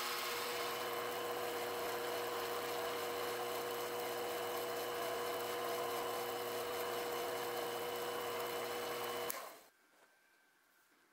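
Small metalworking lathe running steadily with a whine, spinning a tiny steel wrist pin in its collet while a needle file is held against it, adding a hiss. The sound cuts off sharply about nine seconds in, leaving near silence.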